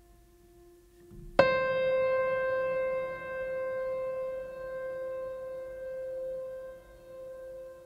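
Background music: a soft held tone, then a single bright note struck about a second and a half in that rings on and slowly fades.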